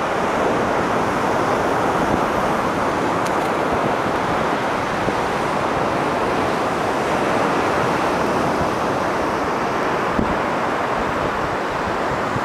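Steady wash of ocean surf mixed with wind, an even rushing noise that holds at the same level throughout without breaks.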